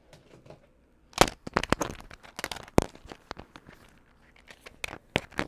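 Irregular plastic clicks and clacks of puzzle cubes being handled, in two clusters with a quieter gap between.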